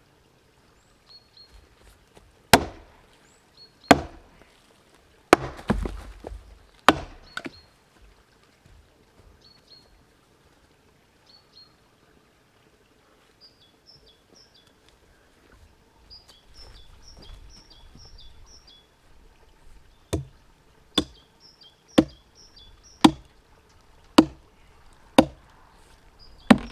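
Long-handled maul striking a seasoned sycamore trunk, giving sharp, hard wooden knocks. A few blows come in the first several seconds, then after a pause a run of seven blows about a second apart.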